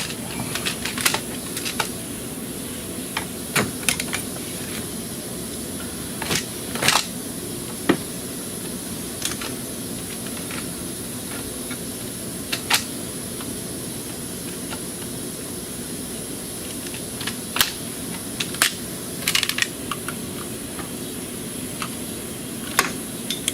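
Scattered light clicks and knocks of hand tools and engine parts being handled, a dozen or so spread irregularly, over a steady background hum with a faint, high-pitched steady whine.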